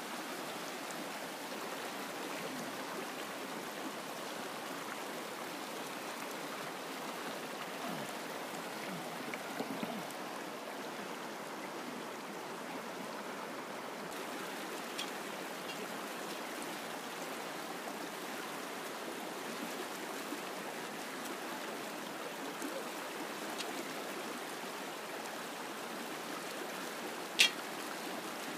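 Rushing water of a shallow, rocky mountain river flowing over stones, a steady rush. Near the end there is a single sharp click, louder than anything else.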